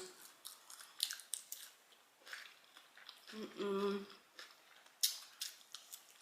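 Close-miked chewing of fried chicken, with wet mouth clicks and smacks at irregular intervals. About three and a half seconds in, a short hummed groan.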